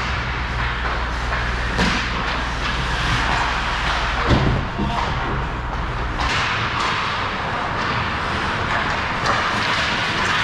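Ice hockey play heard from a camera on the goal net: skates scraping and sticks clattering, broken by several thuds as a player crashes into the net and jolts the camera. A low steady hum under the first six seconds stops at one of the thuds.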